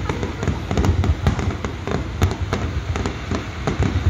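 Fireworks display: a dense, irregular crackle of many small sharp pops over a low rumble of shell bursts.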